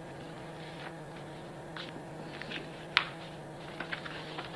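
Steady low hum of room tone, with faint scattered paper rustles and one sharp click about three seconds in.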